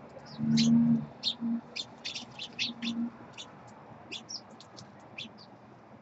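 Small songbirds chirping at a backyard feeder: many short, sharp chirps in quick succession, thinning out toward the end. A low hum about half a second in is the loudest sound, with fainter ones later.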